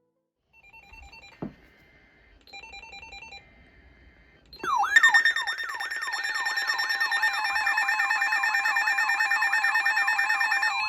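Weather radio tornado warning alert: two faint bursts of data-header tones, then about five seconds in a loud electronic alarm with a warbling pitch sweep repeating about three times a second over steady tones.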